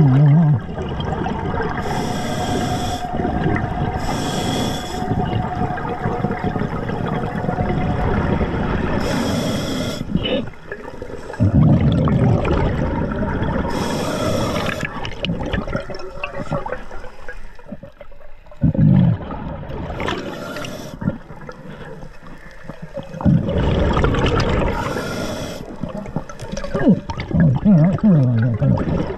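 A diver breathing underwater on an Atomic scuba regulator: a short hiss of inhaled air through the regulator every few seconds, alternating with low rumbling gurgles of exhaled bubbles.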